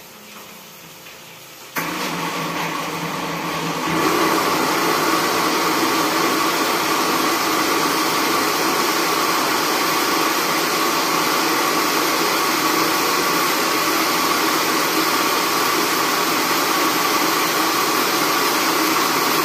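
A loud, steady whirring noise from a running electric appliance motor. It switches on suddenly about two seconds in and grows louder about two seconds later, then holds steady.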